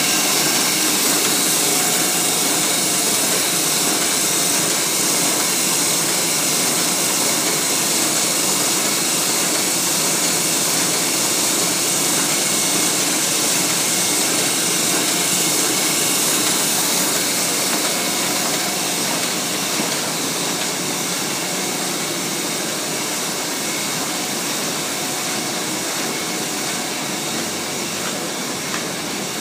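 Heidelberg GTO 52 five-colour sheetfed offset press running steadily: an unbroken mechanical whir with a strong hiss on top, easing a little in the second half.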